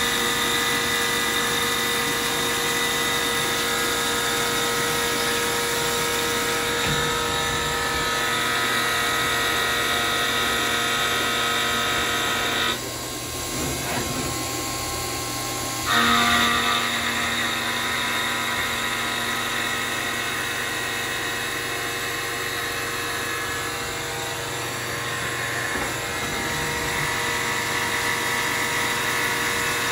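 CNC vertical milling machine's end mill cutting bevels on steel knife blades under flood coolant: a steady spindle and cutting whine with coolant spray. About thirteen seconds in, the cut stops for roughly three seconds, then starts again.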